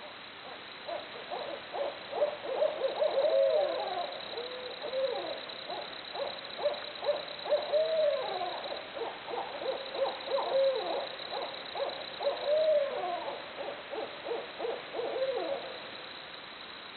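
Barred owls calling in a long, excited run of overlapping hoots and rising-and-falling wails. It begins about a second in and breaks off shortly before the end.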